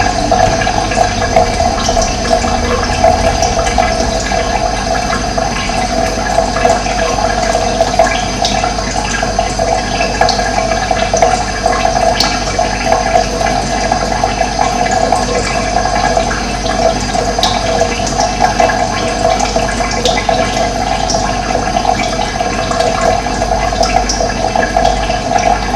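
Running water rushing steadily, a continuous even splashing flow.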